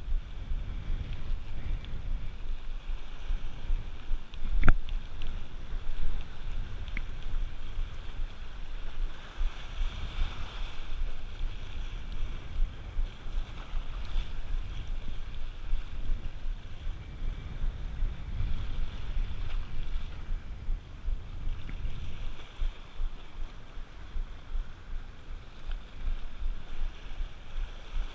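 Wind buffeting the camera microphone over sea surf washing on rocks, with a single sharp click about five seconds in.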